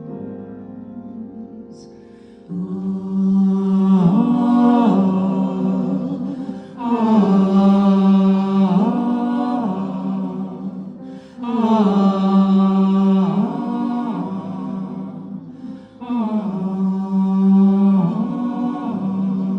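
Voices chanting a short melodic phrase together, repeated four times, each phrase starting strong and tailing off. A sustained tone fades out before the first phrase.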